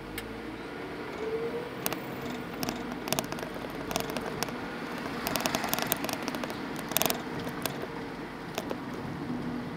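Noise of a slow-moving vehicle travelling along a street, with a steady hum, a short rising whine about a second in, and irregular clicks and rattles.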